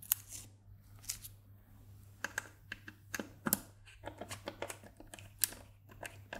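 Small hex screwdriver working socket screws into nuts through stacked acrylic panels: irregular sharp clicks and taps of metal on plastic, some in quick clusters.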